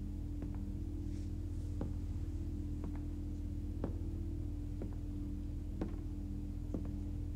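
Slow footsteps on a wooden floor, about one step a second, some landing as a quick double tap, over a steady low hum.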